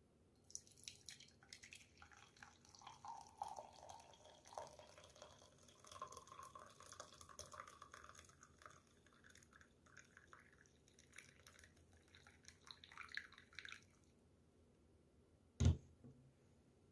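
Faint water trickling and dripping, with many small splashes and clicks, stopping about 14 seconds in; a single dull thump follows near the end.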